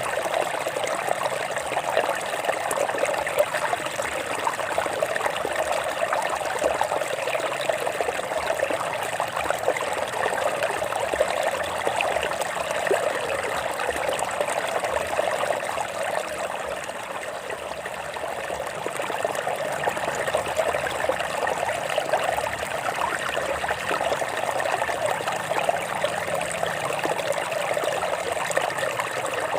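A small stream trickling and babbling over rocks, a steady continuous flow of water.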